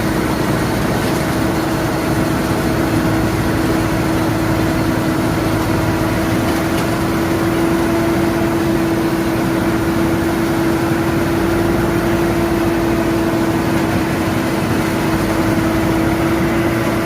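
Pezzolato PTH500 wood chipper driven from the PTO of a Fiat 140-90 tractor, running steadily with a constant hum and a steady whine, with no bursts of chipping.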